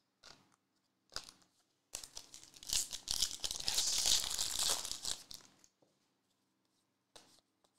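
Foil wrapper of a Panini Recon trading-card pack being torn open and crinkled by hand. A couple of light rustles come first, then about three seconds of tearing and crinkling starting some two seconds in.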